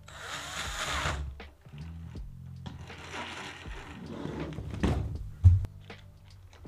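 Cordless drill whirring for about a second as it drives a screw into a 3D-printed plastic gearbox, over background music with a steady beat. A second stretch of rattling noise follows, ending in one loud dull thump.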